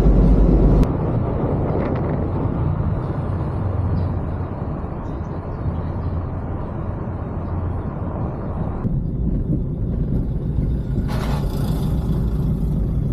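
Steady road rumble of a Wuling Hongguang minivan driving along a paved road, engine and tyre noise. A brief louder rush of noise comes near the end.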